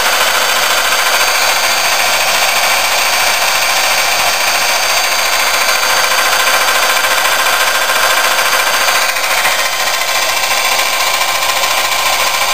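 Electric drill running with a steady, high whine, spinning a 180 V DC treadmill motor's shaft to drive it as a generator.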